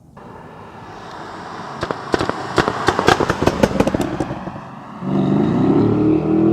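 Porsche Cayenne GTS exhaust, tuned and decatted, letting off a rapid string of sharp pops and crackles; about five seconds in the engine is revved, rising in pitch and holding high.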